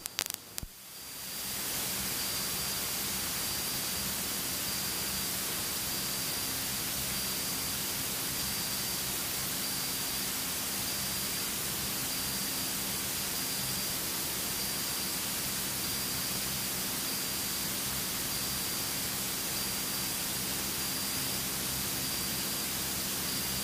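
Steady, even hiss of cockpit noise inside a Beechcraft Baron in flight, with a faint steady hum beneath it and a thin high whine. It fades up over the first second or two.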